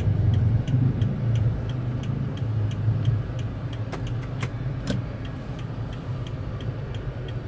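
Car engine running with a steady low hum heard inside the cabin, while the indicator relay ticks evenly at about three ticks a second. A few sharper clicks come about four to five seconds in.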